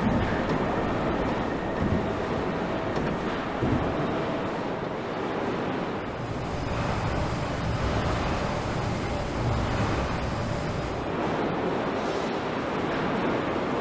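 Aircraft assembly-plant floor noise: a steady rumble and hiss with faint hum tones and a few soft knocks in the first few seconds.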